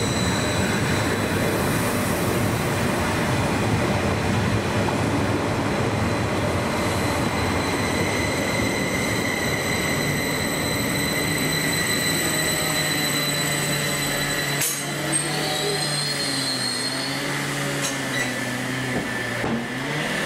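Greater Anglia Class 755 multiple unit moving along the platform close by: steady rolling noise with a high, steady motor whine. About fifteen seconds in it cuts to a Greater Anglia Class 745 electric unit approaching, its motor whine rising and falling in pitch over quieter running noise.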